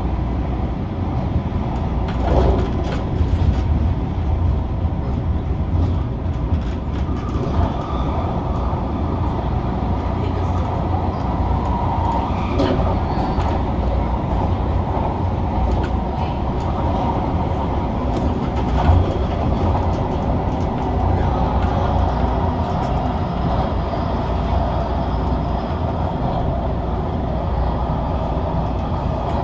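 MTR Tung Chung line CAF-built electric train running, heard inside the carriage: a steady rumble of wheels on the track with a few brief clicks.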